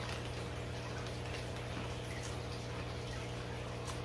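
Steady trickle of aquarium filter water over a low, constant electrical hum, with a couple of faint clicks.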